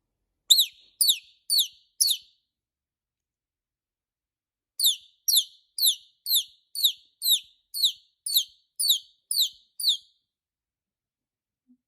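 A parrot chirping: short high chirps, each falling in pitch, about two a second. Four come at first, then a short pause, then about eleven more in an even run.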